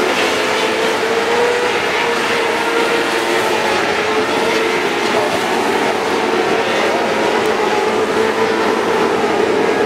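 A field of winged micro sprint cars racing together on a dirt oval, their engines making a steady, loud, high-revving drone.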